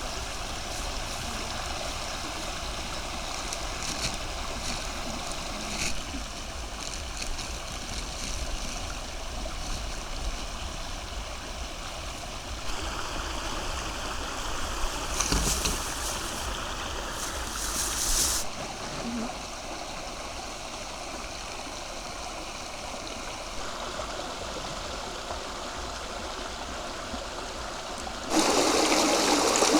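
River water flowing and lapping, with a few short splashes along the way. Near the end it changes abruptly to a louder, closer rush of running water.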